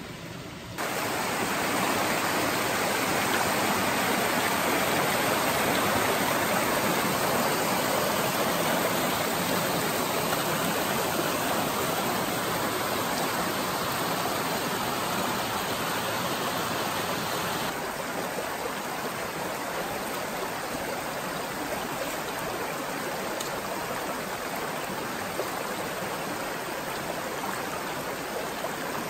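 Small rocky stream rushing over low cascades: a steady wash of running water. It gets louder about a second in and drops a little about 18 seconds in.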